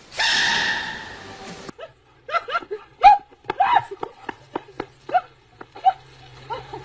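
A small dog yipping: a quick run of short, sharp, high barks, a few a second. It is preceded by a loud hiss lasting about a second and a half that cuts off abruptly.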